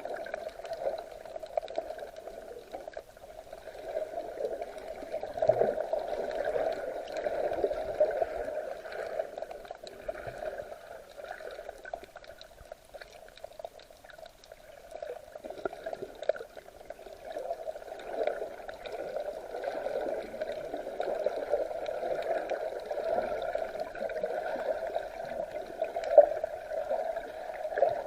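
Sea water sloshing and gurgling, muffled and narrow in tone, with many small clicks and pops and a swell in loudness every few seconds.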